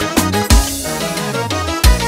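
Manele dance song playing without vocals: a driving kick-drum beat, with a long falling synth bass glide through the middle.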